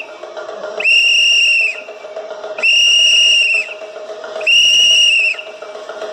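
A whistle blown in three long, steady, high-pitched blasts about a second each and roughly two seconds apart, over a fainter steady lower tone.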